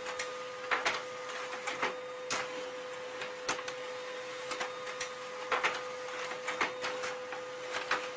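Small desktop printer printing: a steady whine with irregular clicks and rustles as sheets feed through and come out of the top.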